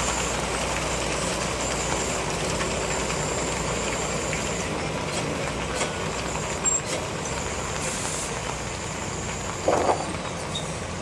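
Heavy-haulage truck's diesel engine running steadily as it pulls an empty low-loader trailer away, its low rumble thinning about halfway through. Two brief louder noises, one past the middle and one near the end.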